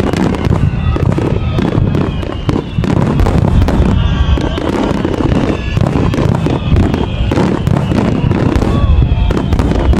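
Fireworks display going off in a continuous barrage of rapid bangs and crackles, with no let-up.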